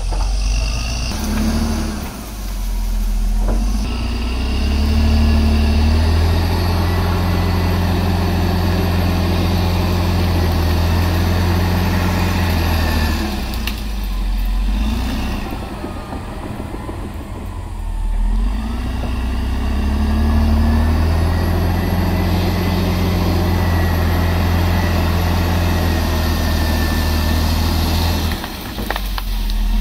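CAT D7R crawler dozer's diesel engine working under load as it pushes into brush. It revs up and holds steady for long stretches, easing off briefly twice before taking the load again.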